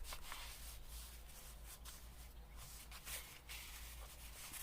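Faint rustling and rubbing of paper being handled and slid into place in a handmade journal, in short scattered scratches.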